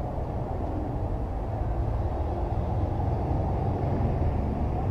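Steady low rumble of outdoor background noise across the pitch, with no single clear event standing out.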